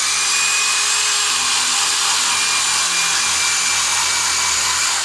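Electric drill running steadily at full speed for about five seconds with a constant whine, then released near the end and winding down.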